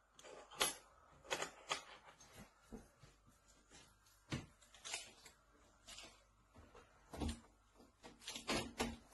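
Faint, irregular light taps and clicks, about fifteen over several seconds, bunched more closely near the end.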